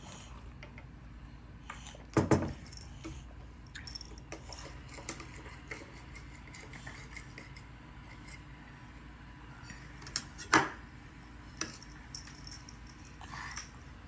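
Small metal spoon knocking and clattering against a wooden table top: a few sharp knocks, the loudest about two seconds in and again about ten and a half seconds in, with lighter clinks between.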